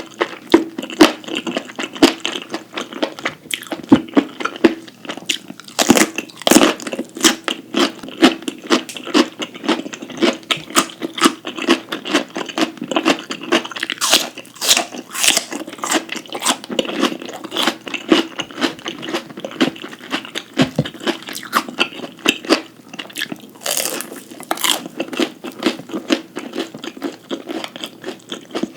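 Close-miked eating: a person chewing and biting crisp food, with many sharp crunches in quick succession.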